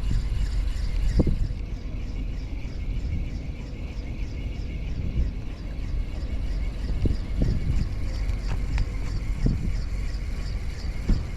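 Small boat motor running steadily under way while trolling, with a fast even beat and a few short thumps over it.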